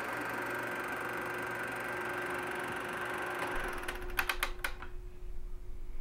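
Reel film projector running with a steady mechanical whir, then switched off about four seconds in: a quick run of clicks from the switch and mechanism, after which the motor hum fades away.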